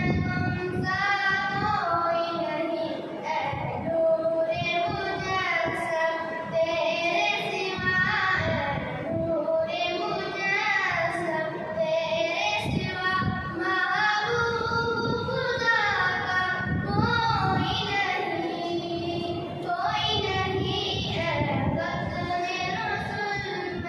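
Urdu devotional naat sung by a high voice, with long, ornamented held notes.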